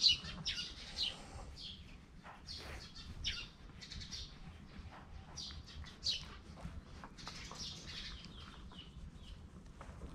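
Small birds chirping: many short, high notes, several a second, over a steady low rumble.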